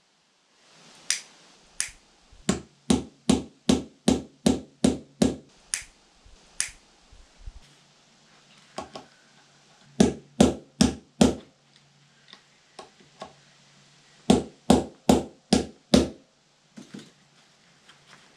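Hammer striking an eyelet setting tool to fix eyelets into a sail: quick sharp blows in three runs of about two to three a second.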